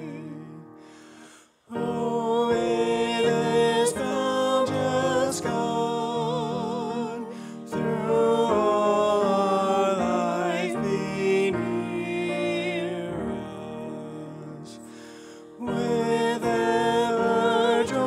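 A woman singing with vibrato to grand piano accompaniment. The music breaks off briefly about a second and a half in, then starts again, softening and coming back up near the end.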